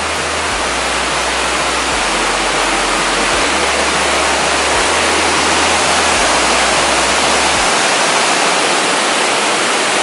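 The 37-metre Magia Blanca waterfall rushing steadily: a dense, even noise of falling water.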